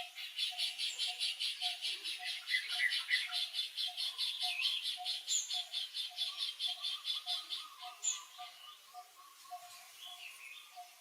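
Outdoor animal chorus: fast, evenly repeated high chirps, about four a second, over a slower, lower pulsing call that keeps a steady beat. The fast chirping stops about eight seconds in, leaving a few short chirps and the lower pulsing.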